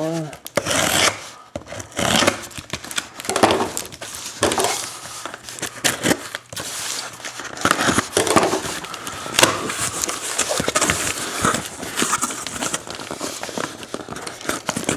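Shrink-wrapped card boxes being handled and pulled out of a cardboard case: irregular crinkling of plastic wrap, with cardboard scraping and rubbing.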